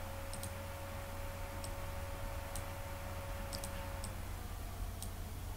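Computer mouse clicking as items are selected and dragged: about eight sharp clicks, some in quick pairs, over a steady low hum and a faint thin whine that stops about four seconds in.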